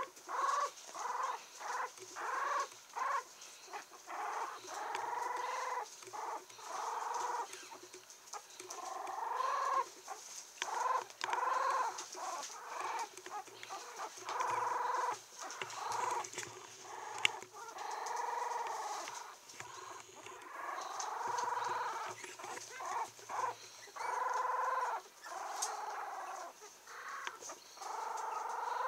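Seventeen-day-old Yorkshire Terrier puppy whimpering and squeaking over and over: short cries, many rising and falling in pitch, one after another with brief pauses.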